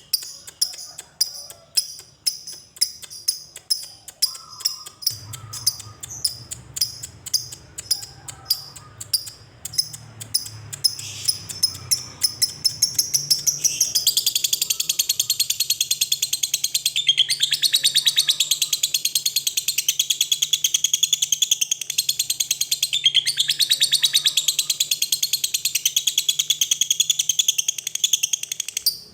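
Lovebird singing: a run of separate sharp chirps a few times a second, then about halfway through breaking into a long, continuous rapid chatter, the 'ngekek' that lovebird keepers prize.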